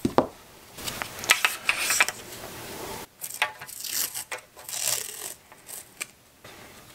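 Masking tape pulled off the roll in several short rasping rips and torn off, with light knocks and rustling as the strip is handled and wrapped onto the rod blank.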